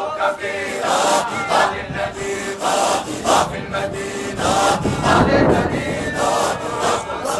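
Group of men chanting a Sufi dhikr together, the voices rising and falling in a steady repeated rhythm with regular breathy pulses.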